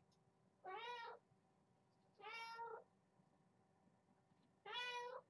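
A kitten meowing three times, each meow about half a second long and rising then falling in pitch.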